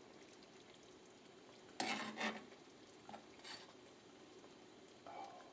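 Metal spoon scraping against a skillet as cream sauce is spooned out, a few short scrapes about two seconds in and again near three and a half seconds, over the faint sizzle of the sauce still on the heat.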